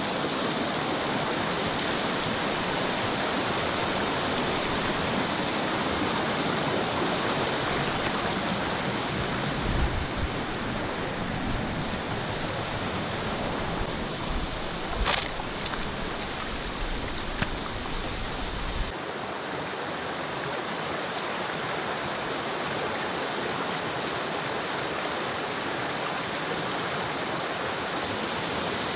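Shallow rocky stream rushing over boulders, a steady rush of water. Midway there are a few low bumps and one sharp click.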